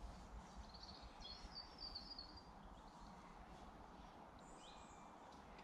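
Near silence with faint bird chirps: a short high twittering call between about one and two and a half seconds in, and another brief call near the end.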